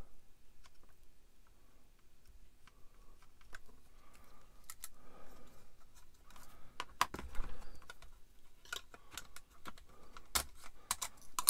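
Irregular light clicks and taps of hard plastic model-kit parts being handled and turned, with a permanent marker knocking against them.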